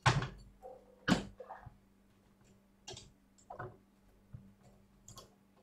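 Small clicks and handling noises as cable connectors and wiring are pressed into an oscilloscope's circuit board: two sharper clicks, one at the start and one about a second in, then a few faint ticks. A faint steady hum underneath.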